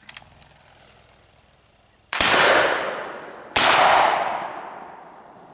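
Two black-powder muzzleloader shotgun shots about a second and a half apart, each cracking out suddenly and then fading away in a long echo.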